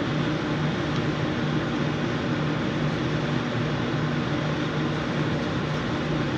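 Cooling unit running with a steady low hum under a constant hiss of moving air.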